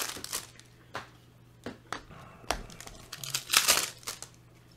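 Foil wrapper of a Panini Prizm basketball card pack crinkling and tearing as it is opened by hand, in a series of short sharp rustles, loudest about three and a half seconds in.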